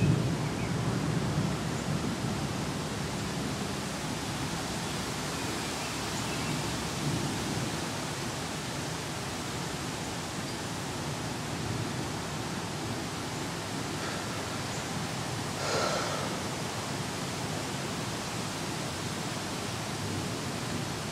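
Steady rain falling, an even hiss. A low rumble of thunder dies away over the first couple of seconds. A brief faint higher-pitched sound comes about three-quarters of the way through.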